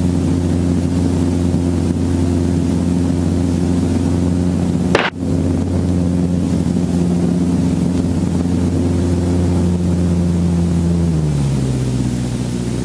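Piston-engine helicopter's engine and rotor running steadily, with a sharp click about five seconds in. Near the end the tone steps down lower.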